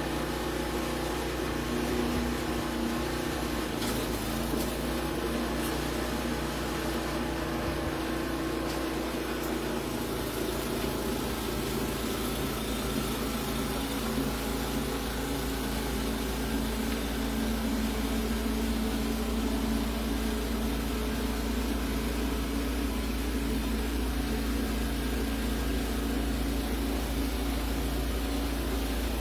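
Steady mechanical hum of a running motor or engine, unbroken throughout, its tone shifting slightly about ten seconds in.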